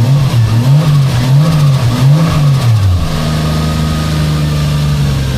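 1JZ-GTE VVT-i turbo straight-six being revved in about four quick throttle blips, its revs rising and falling, then settling back to a steady idle about three seconds in. The engine is cold and revving cleanly with no misfire, after a new VVT-i solenoid cured its lumpy, over-fuelling idle.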